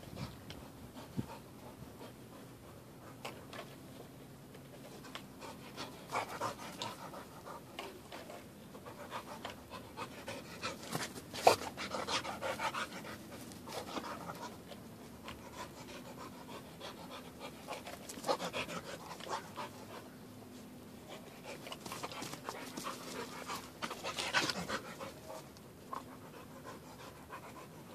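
A dog panting hard in repeated bouts, with one sharp click near the middle.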